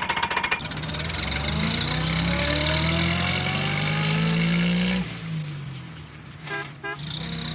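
Car engine accelerating, its pitch rising steadily for about five seconds before cutting off sharply, followed by a quieter running sound and a brief pitched toot near the end.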